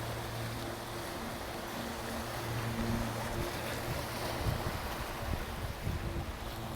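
Sea waves washing on a beach, a steady rushing wash, with a low steady hum underneath. Wind buffets the microphone a few times in the second half.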